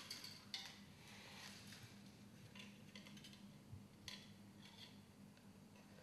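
Thin metal wire being drawn through the holes of a wooden beehive frame: faint, short scraping and clicking strokes, about five of them, over a low steady hum.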